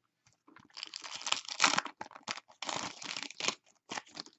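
Trading cards being handled and slid over one another, in two longer rustling, scraping stretches with small clicks and flicks between them.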